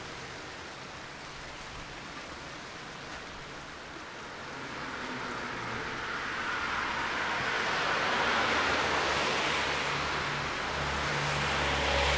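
A car passing on a wet road, its tyre hiss swelling to the loudest point about eight seconds in. Near the end the low hum of an old electric tram drawing closer rises under it.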